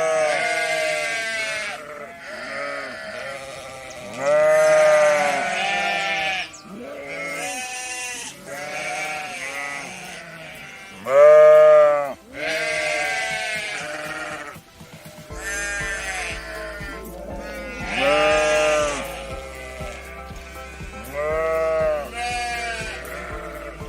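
Bleating animals calling over and over, one wavering call every second or two, some loud and some quieter, as from several animals.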